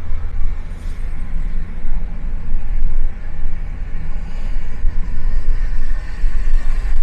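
Car driving, heard as a loud, uneven low rumble of road and wind noise.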